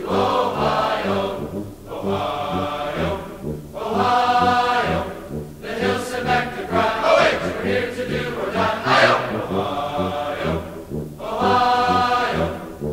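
Background music: choral voices singing long held phrases over a low bass line.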